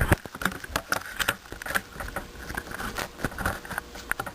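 A knock as the handheld camera is set down, then irregular light clicks and rattles of wires and small parts being handled.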